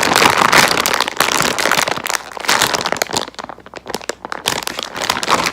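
Crinkling plastic being handled, a dense run of crackles that thins to scattered crackles about halfway through.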